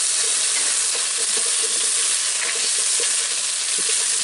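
Small new potatoes, onion and ginger-garlic paste sizzling steadily in oil in a nonstick pan, stirred with a slotted spatula that scrapes the pan as the potatoes are turned. The paste is being fried to cook off its raw smell.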